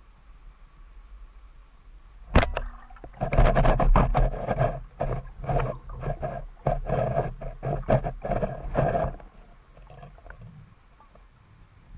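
A speargun fires underwater with one sharp snap, then for about six seconds a rapid, irregular run of knocks and rumbling as the speared fish struggles on the shaft and line.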